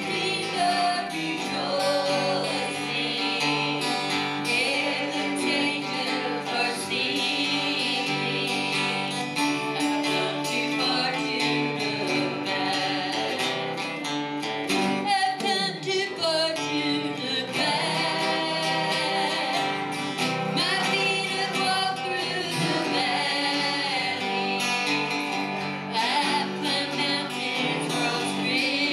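A church worship team singing a worship song together, mostly women's voices, with guitar accompaniment.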